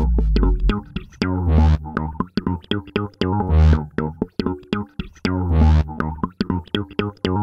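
Background electronic music: a synthesizer track with deep bass notes recurring about every two seconds.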